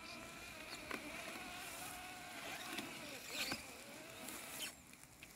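Landxcape LX790 robotic lawn mower's electric motors whining steadily as it works through tall weeds, the pitch dipping and wavering in the middle, with a few sharp clicks. The whine stops near the end.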